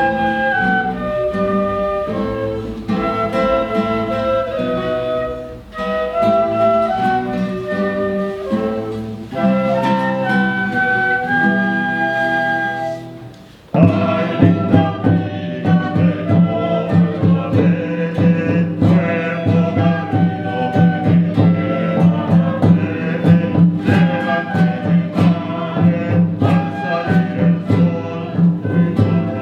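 Live early-music ensemble playing: a clear high melody over soft accompaniment. About fourteen seconds in, the whole group comes in louder with a steady, strongly rhythmic plucked-string pulse underneath.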